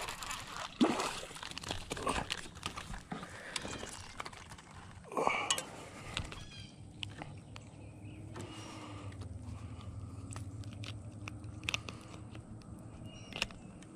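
Rustling and irregular clicks of a largemouth bass being landed on dry bank grass and handled, with a louder scuffle about five seconds in. After that it is quieter, with scattered clicks over a faint steady low hum.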